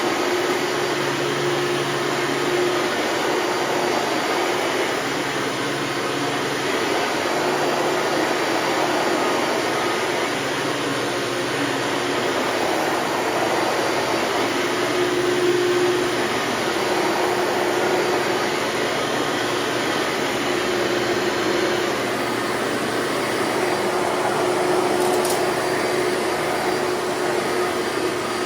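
Hoover Elite upright bagged vacuum cleaner running steadily: a continuous motor and fan rush with a faint humming tone that swells slightly now and then.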